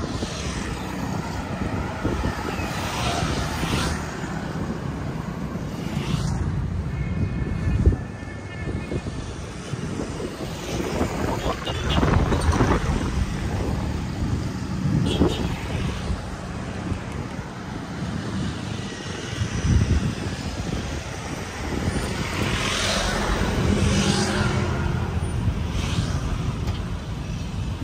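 Road traffic: cars and motorbikes driving past one after another over a steady low rumble, the noise swelling and fading as each goes by.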